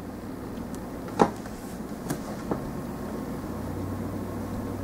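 Small plastic model-kit parts set down on a tabletop: one sharp click about a second in, then two fainter taps around two seconds in, over a steady background hum.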